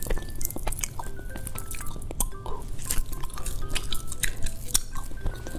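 Sticky sorghum soft candy being stretched and pulled apart by hand, giving many soft tacky clicks and snaps. Faint background music notes run under it.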